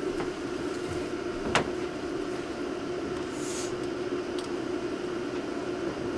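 Steady low hum of a large room, with a single sharp knock about a second and a half in and a brief soft rustle a couple of seconds later.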